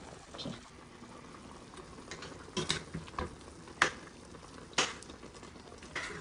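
A metal spoon stirring a chunky stew in a stainless steel pot, clinking sharply against the pot a few times about a second apart in the second half, over a faint steady simmer.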